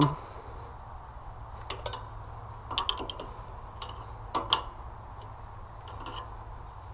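Scattered light metallic clicks and taps of a wrench working the nuts on a small single-cylinder diesel engine, a dozen or so irregular ticks with short pauses between them.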